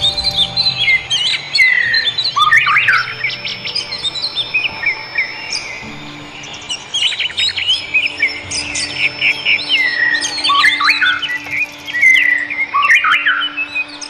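Common nightingale singing: a varied, loud song of sweeping whistled phrases, long held high whistles and rapid clicking trills, with short pauses between phrases.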